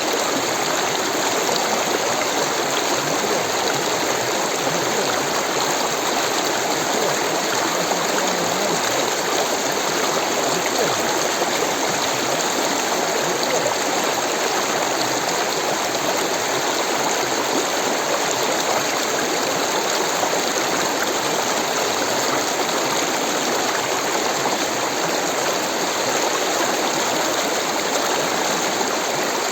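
Rushing water of a stream, a steady unbroken rush with no separate splashes.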